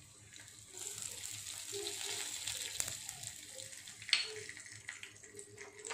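Cumin seeds sizzling in hot refined oil in a kadai, a steady frying hiss that starts about a second in, with one sharp click about four seconds in.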